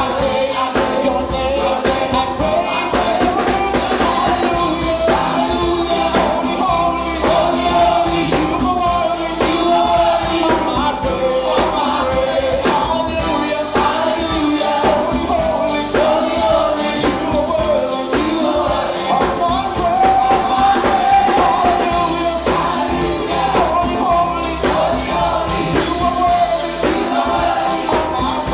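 Live gospel praise music: two synthesizer keyboards, a Yamaha Motif XF8 and a Korg Triton, played with conga drums and light percussion under a man singing into a microphone.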